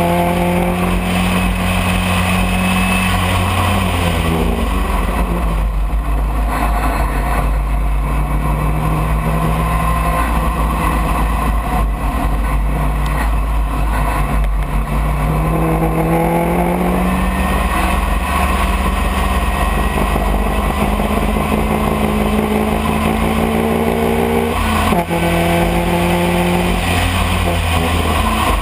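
Open-cockpit race car's engine running hard on a lap, its pitch climbing under acceleration and falling or stepping at each gear change and slowing.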